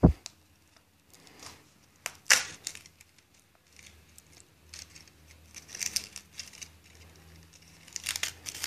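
Aluminium foil crinkling and tearing as a foil-wrapped cardboard lid is peeled open by hand, in uneven spells of crackling, the strongest about two seconds in, midway and near the end. A sharp knock sounds right at the start.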